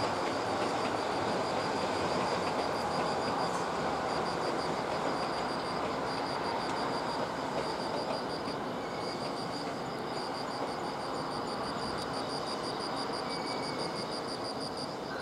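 A steady, broad rumble that slowly fades, like a passing train, with a high chirping in a fast, even pulse throughout.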